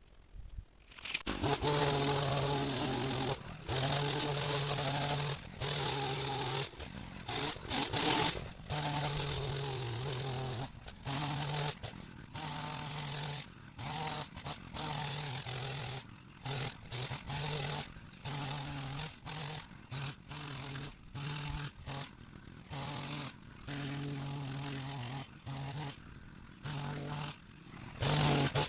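Hedge trimmer cutting a berberis hedge, its motor triggered on and off in many short bursts with a steady hum, starting about a second in.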